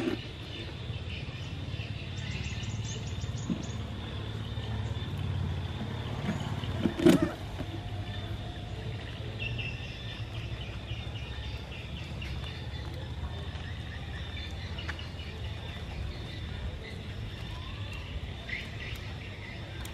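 Outdoor ambience: a steady low rumble with small birds chirping now and then, and one sharp knock about seven seconds in.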